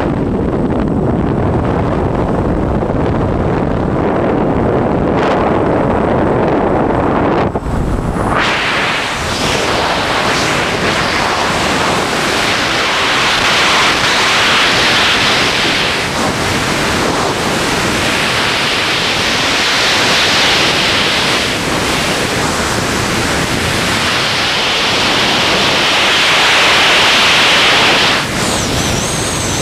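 Wind noise on a helmet-mounted camera during a skydive. First comes the low rumble of the jump plane's engine and slipstream at the open door. About eight seconds in it changes suddenly to the steady hiss of freefall airflow, which swells and eases.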